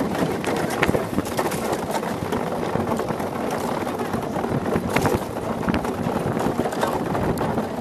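Monotype XV ice yacht running fast over the ice: the runners grind and clatter on the surface under a steady rush of wind, with frequent short knocks from the hull and rigging.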